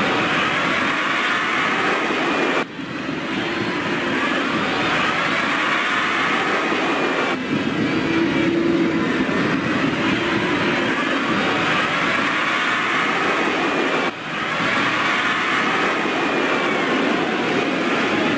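Football stadium crowd noise, a steady roar with faint whistles or horns in it, broken off abruptly three times.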